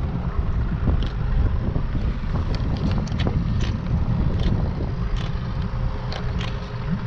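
Wind buffeting the microphone as a loud, uneven low rumble, with a scatter of light clicks and taps as a fish ruler is handled and set down on the boat deck.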